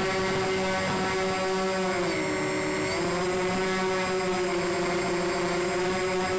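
Motors and propellers of a radio-controlled C-124 scale model plane, heard from a camera on board, running at a steady pitch. The pitch dips about two seconds in and climbs back about a second later.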